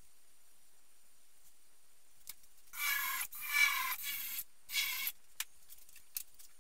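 Cordless drill boring into a wooden workbench top: one run of about a second and a half, then a short second burst, with a few small clicks around them.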